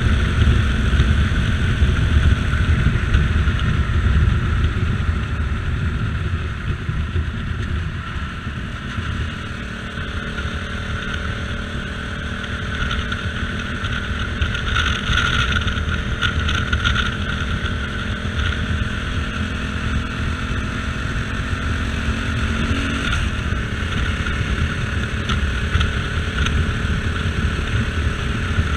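CSC RX4 motorcycle riding on an open road: heavy wind rush over the camera microphone, with the engine note running underneath. The engine's pitch eases down over the first ten seconds and steps to a new note about 23 seconds in.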